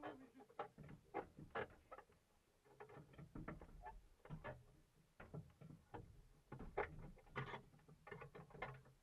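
Faint, irregular clinks and knocks of hand tools such as a socket and cross wheel brace being handled at a front wheel while a punctured wheel is changed, heard muffled from inside the car.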